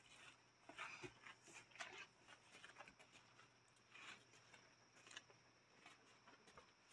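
Near silence: faint, scattered rustles and light scratches of dogs moving about on pet pads and towels.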